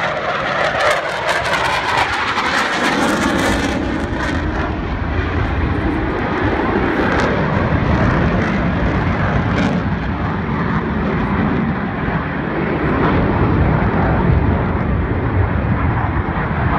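Blue Angels F/A-18 jets flying past, a loud jet rumble that crackles over the first few seconds and then settles into a steady low roar.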